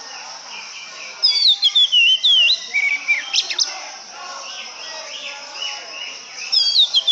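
Oriental magpie-robin (kacer) singing loud, clear whistled phrases of down-slurred and sharply swooping notes: one phrase starts about a second in and lasts around two and a half seconds, and another begins near the end.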